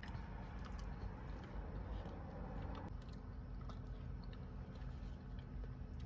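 A person chewing food close to the microphone, with many small sharp wet mouth clicks.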